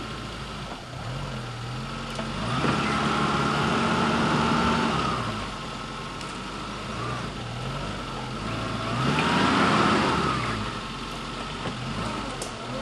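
Suzuki Samurai's engine crawling at low revs off-road, revved up twice, each time for a few seconds, before settling back to a low steady run.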